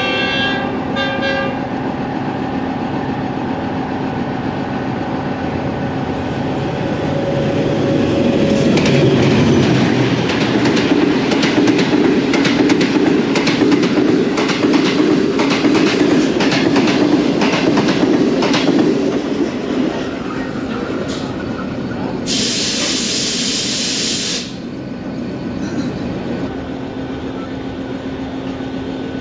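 The 5UP Green Line express passing on the next track at speed. The diesel locomotive's horn sounds briefly at the start, then the wheels clatter over the rail joints as the coaches rush past, loudest in the middle and dying away about twenty seconds in. A short sharp hiss of about two seconds follows.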